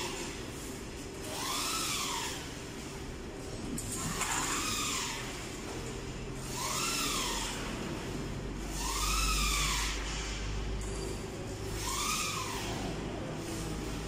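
A pitched warning tone that rises and then falls, sounding about six times at intervals of roughly two and a half seconds, over the steady hum and hiss of factory machinery.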